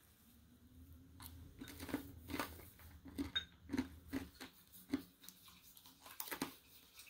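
Bamboo tea whisk working thin matcha in a ceramic tea bowl: a run of irregular light scrapes and clicks against the bowl.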